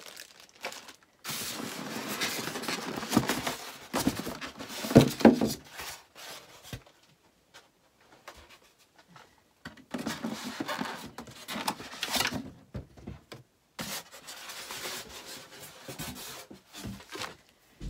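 Polystyrene packing blocks rubbing and scraping as they are pulled off a sewing machine, in several irregular bursts with a quiet spell of a few seconds in the middle.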